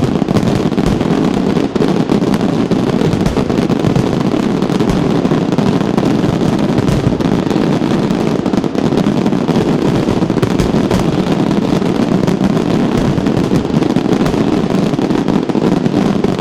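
Fireworks display: a dense, continuous barrage of rapid bangs and crackling aerial shells with no pauses, loud throughout.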